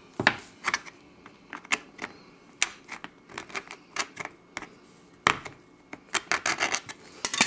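Trading-card packaging being worked open by hand: an irregular string of sharp clicks, taps and crinkles, coming thicker about five seconds in.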